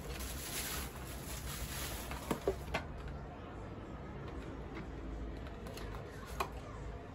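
Rustling and handling of gift packaging: plastic bubble wrap and paperboard product boxes being pulled out and opened, with a few sharp taps, about two and a half seconds in and again near the end.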